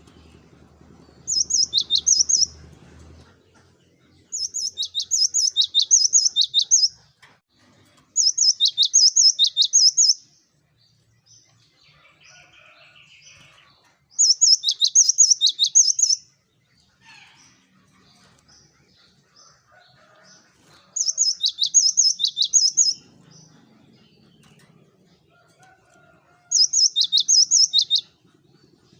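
Cinereous tit (gelatik batu) singing: six bursts of high notes repeated quickly, about four a second, each burst lasting a couple of seconds with pauses between.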